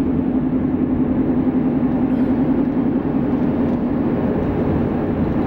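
Steady road and engine noise of a moving car heard from inside the cabin, with a low hum running under it.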